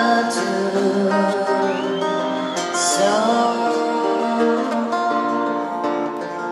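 Fingerpicked acoustic guitar playing a flowing pattern of notes in a live arena performance. A high wavering whistle rises over it about two seconds in.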